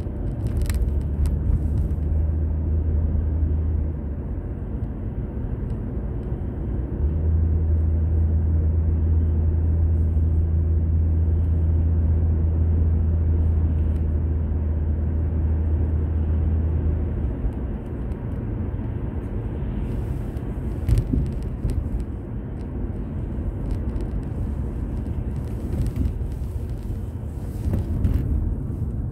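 Car driving on the road, heard from inside the cabin through a dashboard drive recorder: steady road and engine rumble with a deep drone that swells for several seconds at a time. A sharp knock comes about two-thirds of the way through.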